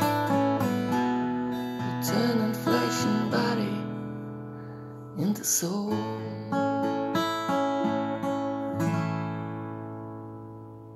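Acoustic guitar strummed through the closing chords of a song, the last chord left ringing and fading away near the end.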